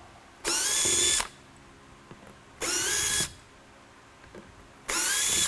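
Cordless drill/driver backing Phillips head screws out of a polycarbonate lightbar dome in three short runs, each under a second, with the motor's whine rising as it spins up.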